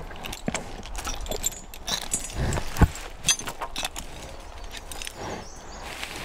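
Clinking of a Belgian draft horse's logging chains and harness, with scattered knocks and one loud, sharp knock near the middle.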